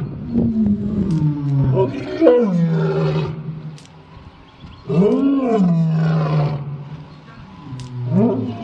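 Adult male lion roaring in a bout: about four long roars, two to three seconds apart. Each one swells up in pitch, then drops into a long, low, drawn-out tail.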